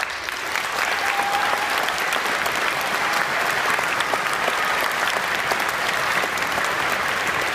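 Audience applauding in a large gymnasium, breaking out suddenly and quickly building to a steady level.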